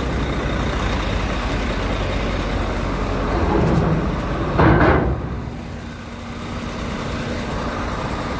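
Lonking CDM6225 excavator's diesel engine running as the machine crawls off a lowbed trailer, with a short loud burst of noise a little under halfway through.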